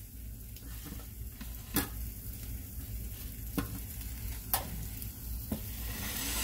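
An egg sizzling steadily in a stainless steel frying pan, with a few sharp clicks of a metal spatula against the pan.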